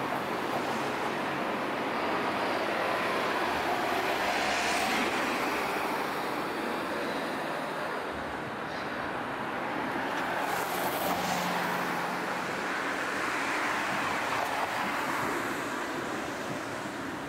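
Road traffic from the street below: a steady wash of tyre and engine noise that swells and fades as vehicles pass, loudest about four seconds in and again in the second half.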